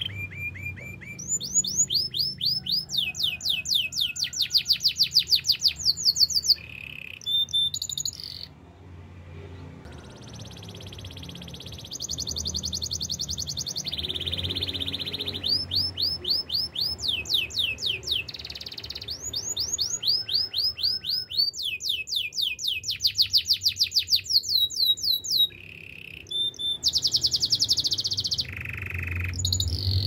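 Domestic canary singing a long song of rapid trills. Each trill is a run of quickly repeated sweeping notes, switching to a new trill every second or two, with short pauses about eight seconds in and again near twenty-five seconds.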